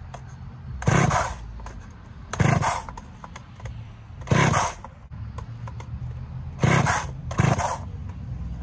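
Ported Poulan 54 cc two-stroke chainsaw being pull-started on choke: five quick rope pulls, the engine cranking over without catching. The saw has never had fuel in it and is expected to need several pulls to prime.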